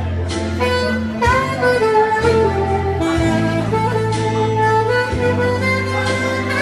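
Saxophone playing a melody, sliding between some notes, over a backing track with a steady bass line.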